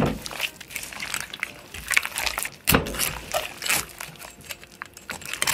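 Wet squelching and crackling clicks from a tiger pufferfish's innards being handled and cut free with a knife, irregular, with one louder knock about two and a half seconds in.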